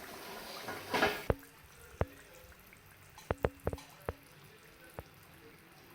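A metal utensil clinking against a cooking pot: about seven sharp, irregular clicks, a few with a short ring, after a brief scrape about a second in.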